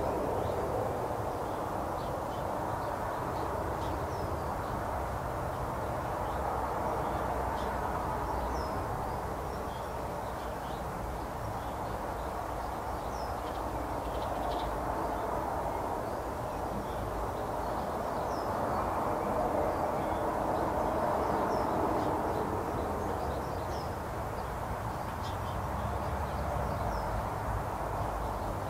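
A steady background rumble that swells and fades slowly, with faint, short bird chirps scattered throughout.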